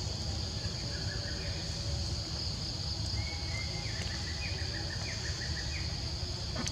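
Outdoor ambience: a steady, high-pitched drone of insects, with a bird calling a run of short notes twice, over a low rumble.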